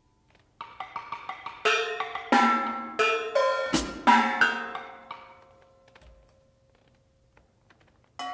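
Solo percussion played with sticks: a run of quick strokes leads into loud hits on toms and metal percussion, whose ringing pitches hang on, with a deep drum thump in the middle. The ringing dies away to near quiet, and near the end a single metallic strike rings on like a bell.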